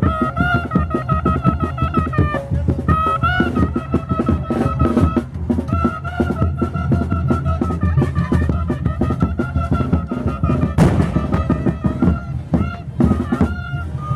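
Chirimía band playing a high, sustained wind melody over snare and bass drum beats, with a sharp crash about eleven seconds in.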